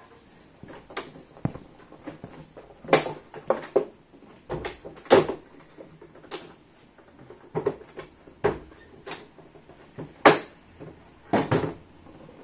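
Irregular clacks and knocks of the folded Tacx Neo 2T smart trainer's plastic-and-metal frame being handled and its legs swung open, about a dozen separate knocks with the loudest about ten seconds in.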